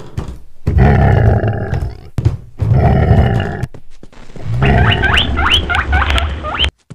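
Deep animal calls, about four long ones with short gaps between them. The last call has high, quickly rising squeaks over it.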